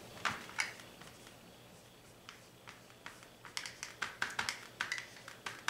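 Dry-erase marker writing on a whiteboard: short ticks and taps of the pen strokes, a couple early on and then a quick run of them in the last two seconds.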